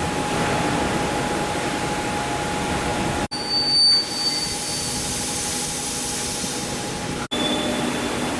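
Steel coil slitting machine running: a steady mechanical noise with a constant mid-pitched hum. It cuts off abruptly twice, and the middle stretch has a brief high whine and a short swell in loudness.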